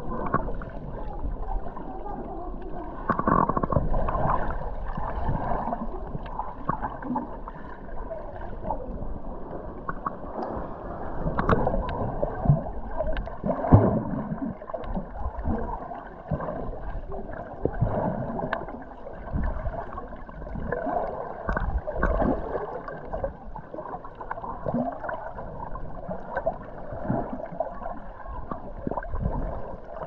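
Underwater sound picked up by a camera held below the surface: muffled, irregular gurgling and sloshing of seawater as a snorkeler swims, with a few sharper clicks.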